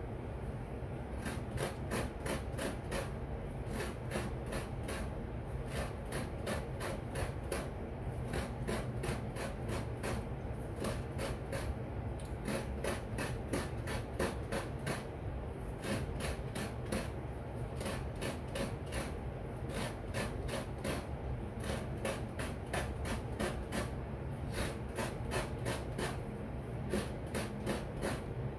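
Fresh coconut meat being grated: a half coconut scraped by hand against a serrated grater blade. It makes a rasping stroke about four times a second, in runs broken by short pauses as the shell is turned.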